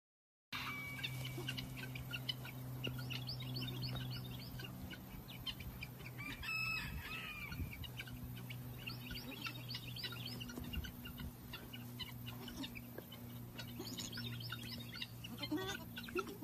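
Chickens calling: many short, high chirps in quick clusters, with one louder call about six and a half seconds in, over a steady low hum.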